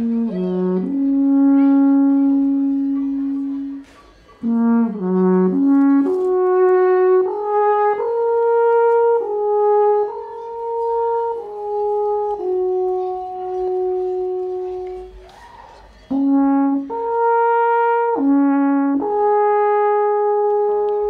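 Alphorn playing a slow melody of long held notes that step between pitches, with brief breaks about 4 seconds and 16 seconds in.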